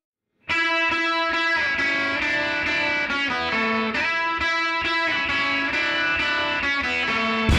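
Background music: a guitar-led track that starts about half a second in, after a brief silence, and plays steadily.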